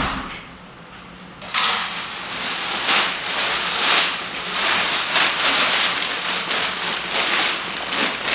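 Plastic bag rustling and crinkling as it is carried and handled, starting about a second and a half in and going on with many small crackles. A sharp knock comes right at the start.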